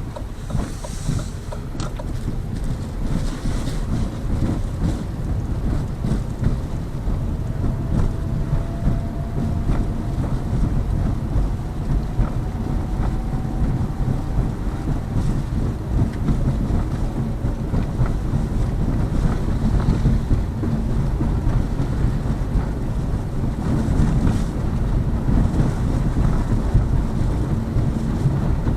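Tyre and road rumble inside the cabin of a Lada Vesta Cross driving on Pirelli summer tyres, steady and low, with occasional suspension knocks over bumps that sound normal, the loud thumping having gone after new shock struts. A faint rising whine comes through about a third of the way in.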